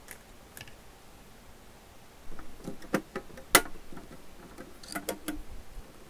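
Scattered light clicks and taps of metal parts being handled as a coiled-wire gun holder is fitted to the side of a desoldering station, with the sharpest click about three and a half seconds in.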